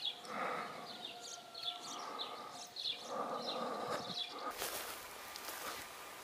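Songbirds chirping with many short, quick calls, some falling in pitch, and a few held notes. About four and a half seconds in the sound switches to a faint, steady outdoor hiss.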